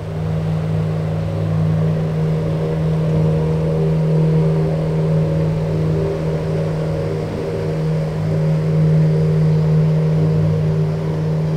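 Engine of a small covered passenger river boat running with a steady low hum.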